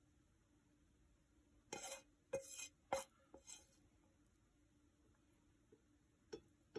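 Wooden chopsticks clicking and scraping against a frying pan and plate as sausages are lifted out and set down: a quick run of short clinks and scrapes about two to three and a half seconds in, then a couple of faint taps near the end.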